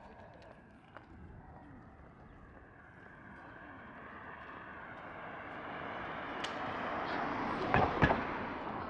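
A vehicle approaching and passing close by, its noise swelling steadily over several seconds and easing off after it goes by, with two sharp knocks as it passes.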